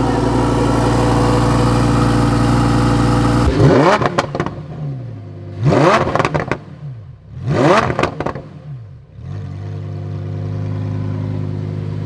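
Lamborghini Huracán Performante's V10 engine idling, then revved three times, each rev rising and falling back, before it settles to a steady idle again. The engine is still cold.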